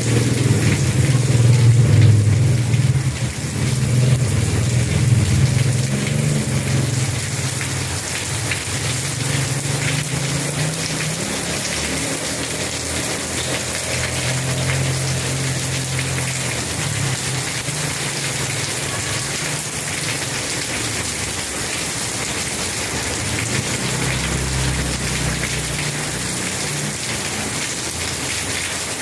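Steady rain falling and pattering on surfaces. A low rumble runs under it for the first several seconds, returns briefly midway, and a deeper one comes in near the end.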